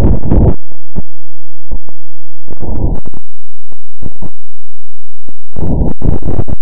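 Loud low rumbling noise offered as the sound of the planet Mars, a space recording turned into audio. The rumble cuts out under a second in and gives way to scattered crackles and pops. A short burst of rumble comes around three seconds, and the rumble returns near the end.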